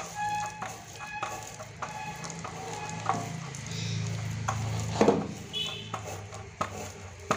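Wet squelching and scraping as fibrous palmyra palm fruit pulp is rubbed by hand against a metal knife blade over a steel plate, with scattered irregular clicks of metal. A low steady hum runs underneath.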